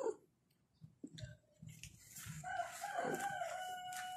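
A rooster crowing. The call starts about two and a half seconds in and holds one steady note for close to two seconds, after a few faint short sounds.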